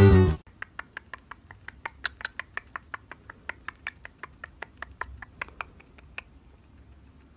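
Quick, uneven little clicks and smacks, about five a second, from a cockatiel's beak nibbling at a person's lips. A short end of background music cuts off at the very start.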